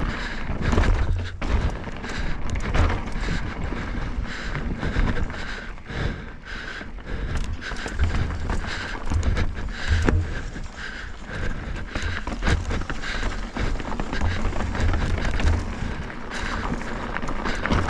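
Mountain bike descending a rocky trail: tyres rolling over rock with frequent clattering knocks from the bike, and wind buffeting the microphone.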